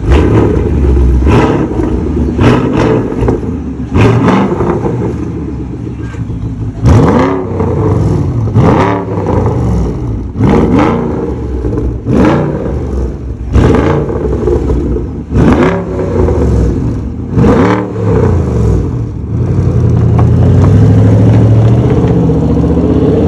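Porsche Panamera 4.8-litre V8 revving through an exhaust with reworked muffler internals: a series of sharp throttle blips, about eight rising-and-falling revs each opening with a loud bark. Near the end it settles into a steadier deep drone as the car pulls away.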